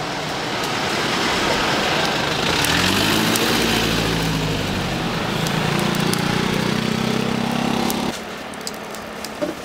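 A motor vehicle engine running close by over a steady rush of street noise, its pitch rising and falling around three seconds in; the sound cuts off abruptly about eight seconds in.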